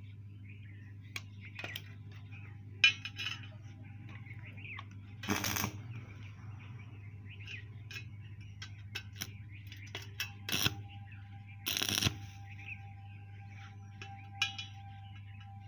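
Short bursts of stick-welding arc crackle, two of them about half a second long and one briefer, as a round steel plug is tacked and set into a hole in square steel tubing. Light metallic clicks and clinks come between the bursts, over a steady low hum.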